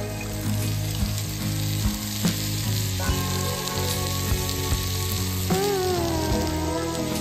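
Chicken pieces sizzling and frying in ghee on a clay roof tile over a wood fire, under background music with a steady beat; a gliding melody comes in about five and a half seconds in.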